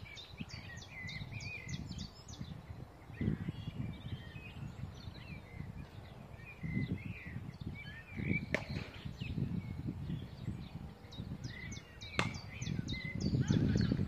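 Birds chirping and singing, with wind gusting on the microphone and two sharp knocks a few seconds apart in the second half.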